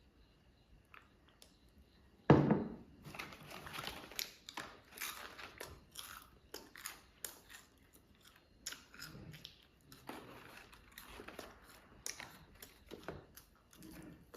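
A person biting into crispy fried chicken wishbone pieces and chewing: one loud crunching bite about two seconds in, then repeated crackly crunches of the fried coating.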